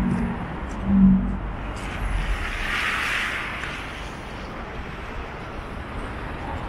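City street traffic: vehicles passing, with a brief low engine hum loudest about a second in and a swelling hiss of a vehicle going by around three seconds in.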